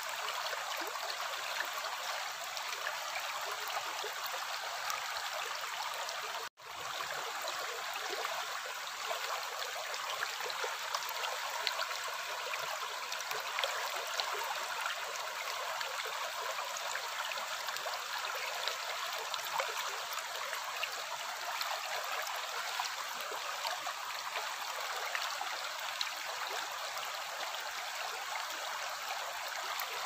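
Shallow rocky stream flowing and rippling over stones, a steady rush of water that cuts out for an instant about six and a half seconds in.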